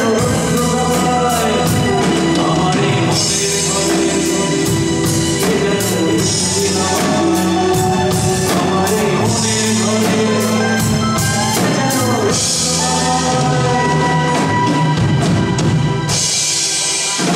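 A live rock band playing, with a singer over drum kit and held chords, and cymbal crashes washing in several times.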